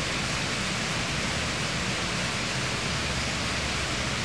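Steady, even hiss of background noise with no distinct knocks or clicks.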